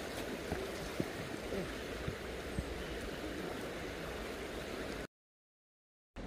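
River water running over a stony bed, a steady rush with small gurgles and a few light knocks. The sound cuts out completely for about a second near the end.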